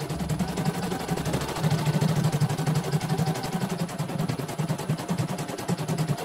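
CNY portable computerized embroidery machine stitching a design, a rapid, even clatter of needle strokes as the hoop carriage shifts. This is a test run after servicing, with a new motor fitted.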